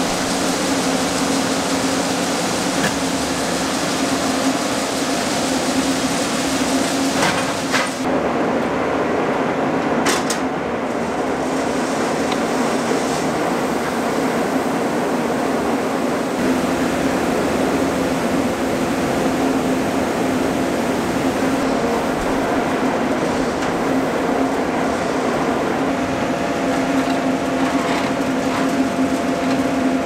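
Grain-handling machinery running with a steady drone and hum as a gravity wagon unloads shelled corn into the receiving pit. There are a few brief knocks about 7 and 10 seconds in, and the hiss above the drone drops away about 8 seconds in.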